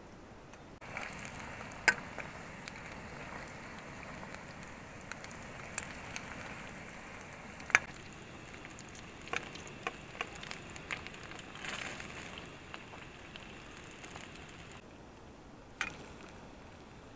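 Momos frying in hot oil in a kadhai, a steady sizzle that starts about a second in and stops near the end. Sharp clinks of a steel spoon against the pan and plate come at intervals, the loudest two early on and near the middle.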